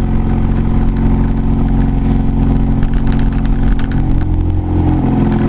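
Truck engine and road noise heard from inside the cab while driving, a steady drone whose engine note shifts about four seconds in. The owner says the truck doesn't run well.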